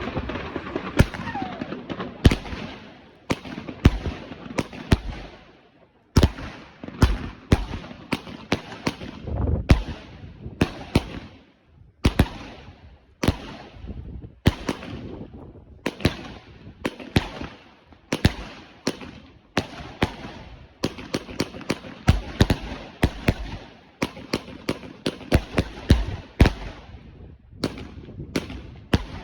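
Essence of Fire fireworks going off: a long, irregular run of sharp bangs, at times two or three a second, with crackling and hiss between them and two short lulls.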